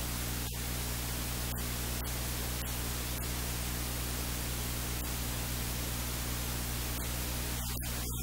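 Steady electrical hiss with a low mains hum, from the recording chain, with a few faint ticks in the first few seconds.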